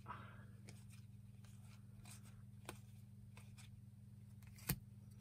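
Faint rustling and light clicks of a foil trading-card pack being opened and its cards handled, with one sharper click near the end, over a steady low hum.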